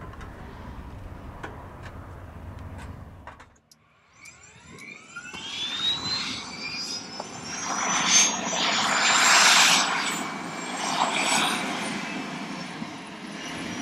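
Rescue helicopter's turbine engine starting up on the ground: after a low rumble that cuts off a few seconds in, a whine rises steadily in pitch over several seconds while a loud rushing noise builds as the engine spools up.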